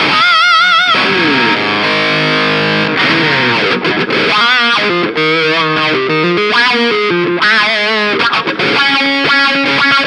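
Electric guitar played through a Mooer GE150 Pro multi-effects unit on a distorted lead tone: a held note with wide vibrato, notes sliding down, then quick melodic runs with bent, wavering notes.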